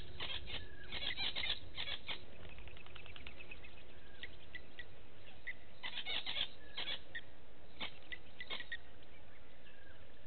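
Small wild animals calling: bursts of rapid clicking chatter near the start and again about six seconds in, with short high chirps in between, over a low steady rumble.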